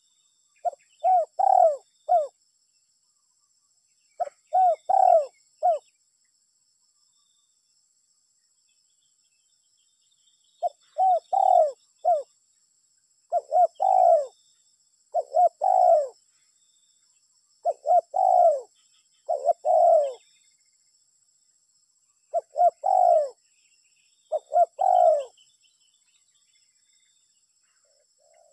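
Spotted dove (tekukur) cooing in short phrases of a few notes, repeated every second or two, with a longer pause before the second run of phrases.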